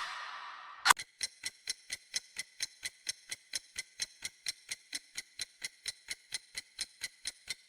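A single heavy hit with a ringing tail about a second in. It is followed by rapid, evenly spaced clock-like ticking, about four ticks a second: a ticking clock or timer sound effect.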